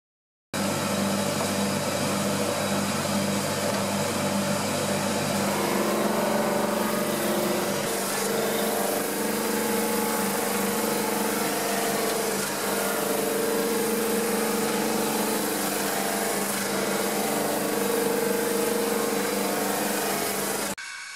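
Shop-built drum sander running steadily, its sanding drum spinning, with a constant mechanical hum and hiss. It starts suddenly just after the start, its tone shifts a little about five seconds in, and it drops off sharply near the end.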